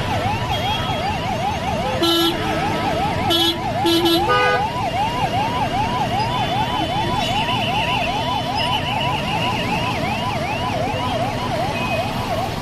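Emergency vehicle siren sounding a fast yelp, rapid rising sweeps repeating over and over, over the noise of stalled road traffic. Vehicle horns honk briefly three times in the first few seconds.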